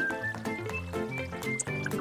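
Background music: a light tune of short notes that change quickly one after another.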